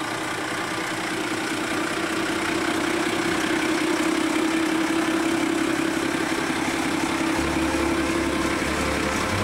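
1963 Morris FFK-140 truck's engine running steadily at low revs, growing louder over the first few seconds as the truck comes close.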